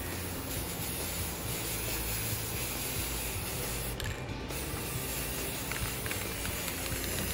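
Aerosol can of Rust-Oleum silver metallic spray paint hissing in a steady spray, with a brief break about four seconds in.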